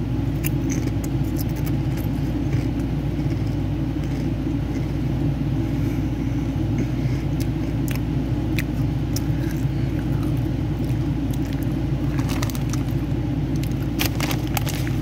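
Ruffles potato chips crunching while being chewed, with a steady low hum underneath. The chip bag crinkles near the end.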